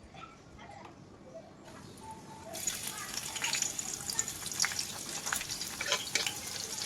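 A few faint clicks, then about two and a half seconds in, food starts sizzling in hot oil in a pan: a steady hiss full of crackling pops.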